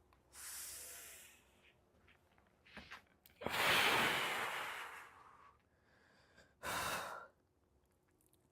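Breathing of a person smoking a blunt: a short breath, then a long, loud exhale of smoke starting about three and a half seconds in and fading away, and another short breath near the end.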